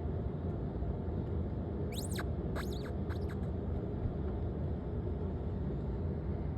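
Steady low background hum, with a quick run of about four high, squeaky chirps falling in pitch about two seconds in.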